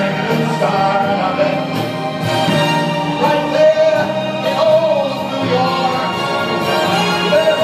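Music: a singing voice holding long, wavering notes over a steady accompaniment.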